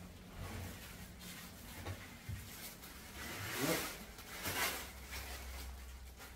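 Handling noise from unpacking: a couple of light knocks about two seconds in, then two louder rustling swishes in the middle as packaging and statue parts are moved and set down.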